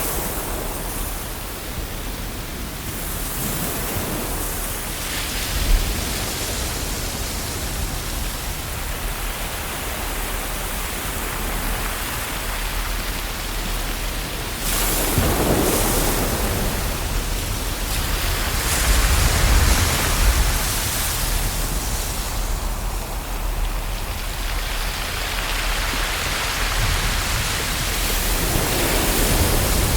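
Ocean waves washing in: a continuous rush of surf with a low rumble, swelling into louder breaking waves about halfway through and again near the end.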